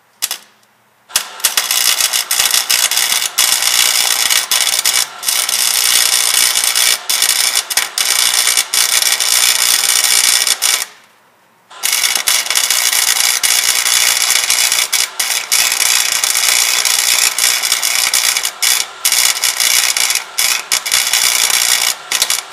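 Electric arc welder laying two long beads on a truck's exhaust, a steady loud crackle and sizzle with brief breaks, stopping for about a second near the middle before the second run.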